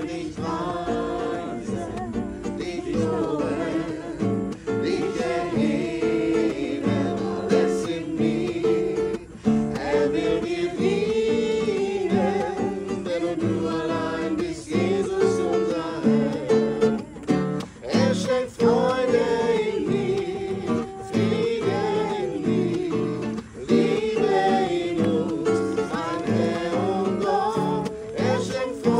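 Acoustic guitar strummed as accompaniment to a worship song, with a voice singing the melody.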